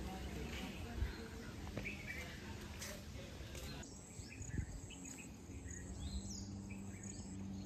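Outdoor ambience of birds chirping, with an insect's steady high trill joining about halfway through and a couple of soft knocks.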